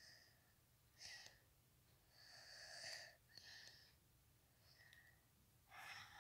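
Near silence, broken by several short, faint puffs of breath close to the microphone.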